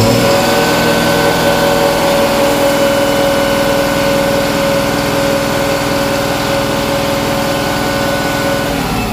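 Mahindra Blazo BS4 truck's diesel engine held at high revs in a steady run, with the revs dropping back near the end. The boost pressure barely rises while it revs, the sign of a damaged turbocharger turbine wheel.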